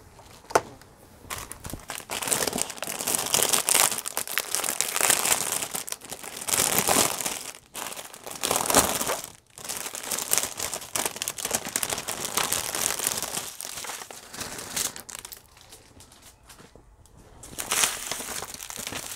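Crinkling and rustling of clear plastic packaging as hands handle and open a bag of small bagged resin diamond-painting drills. The crinkling comes in irregular bursts, with a quieter lull a few seconds before the end.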